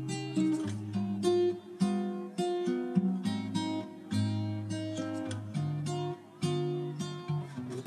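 Background music: acoustic guitar strumming chords, each one struck and left to ring.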